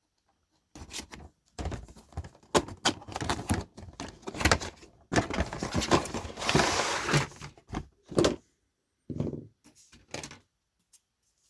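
Cardboard box being opened and handled, with a string of knocks, clicks and scrapes and a longer rustling scrape about halfway through as the plastic sprues are drawn out.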